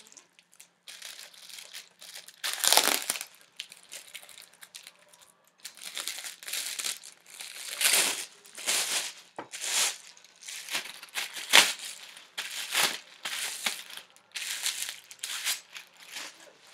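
Packaging being unwrapped from a new hockey stick: irregular crinkling and rustling in short bursts, loudest about three, eight and twelve seconds in.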